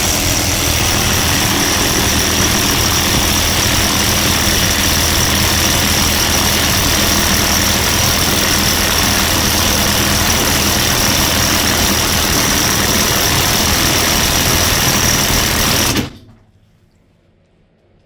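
Impact wrench running with its trigger held, a loud, steady rattling hammer that cuts off suddenly about 16 seconds in.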